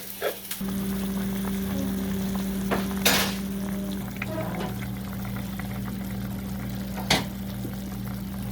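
Food sizzling in a pan over a steady low hum that sets in about half a second in. A short hiss comes about three seconds in, and a single knock a little after seven seconds.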